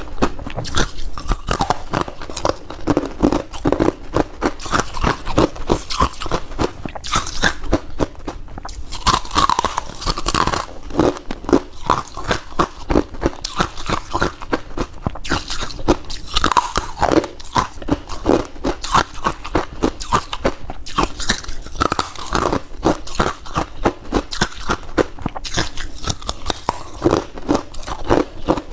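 Close-miked biting and chewing of crunchy freezer frost, with a steady run of rapid crunches, a few each second.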